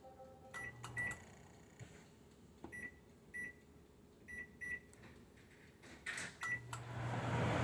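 GE microwave oven keypad beeping as its buttons are pressed: several short high beeps, mostly in pairs, with light clicks. Near the end the oven starts, a low hum coming on and its fan noise rising.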